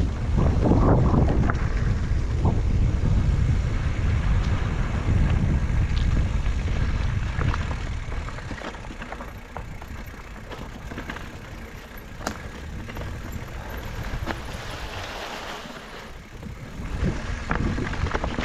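Wind buffeting the helmet or bike camera's microphone over the rumble and rattle of a mountain bike moving on a dirt trail. The noise eases off about halfway through, leaving scattered clicks and knocks, and builds up again near the end.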